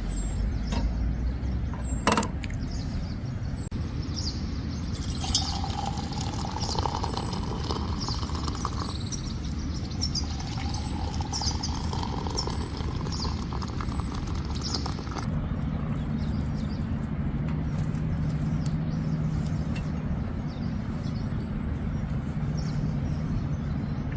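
Small birds chirping repeatedly over a steady low outdoor rushing noise, the chirps clustered in the middle and dying away; a single sharp click about two seconds in.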